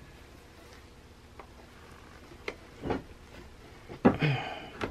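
A few short metallic clicks and taps, the loudest about four seconds in, as a steel pin punch starts the mainspring housing pin into a 1911 pistol's frame.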